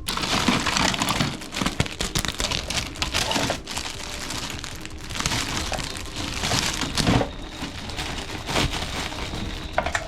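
Crinkling and rustling in uneven bursts, with scattered sharp clicks.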